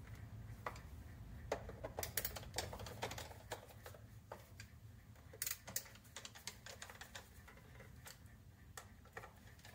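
Scattered light clicks and taps of hands working on the plastic underside of a Roomba vacuum robot and its small screws during reassembly, thinning out toward the end.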